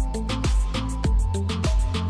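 Background music with a steady drum beat, about two beats a second, over a deep bass line and held notes.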